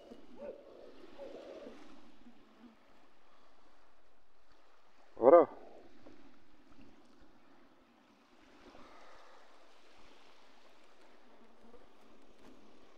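Faint, steady wash of water. One short, loud call that rises and falls in pitch cuts through about five seconds in.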